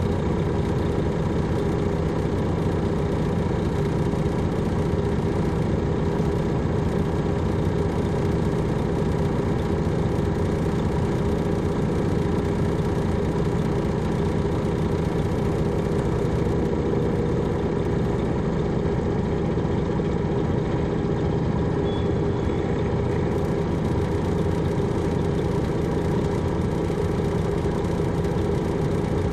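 Detroit Diesel Series 60 diesel engine of an MCI D4000 transit coach running steadily, an even hum that holds the same pitch and loudness throughout.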